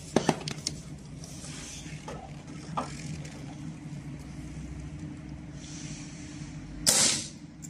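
Capacitor-discharge stud welder firing an M8 carbon-steel stud onto a painted steel roofing sheet: one short, sharp crack of the discharge about seven seconds in. Under it a steady low hum runs throughout, with a few light handling clicks near the start.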